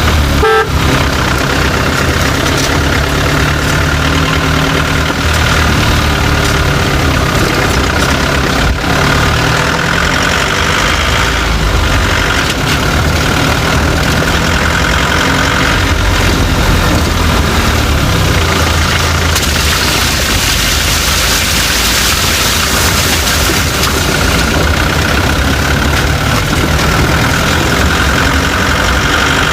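Chevrolet Tavera on the move, its engine running steadily over road noise, with an occasional faint knocking rattle (khat-pat) from under the vehicle, barely audible beneath the engine. The knock comes and goes, an underbody noise whose cause ten mechanics could not find. The hiss grows louder for a few seconds past the middle.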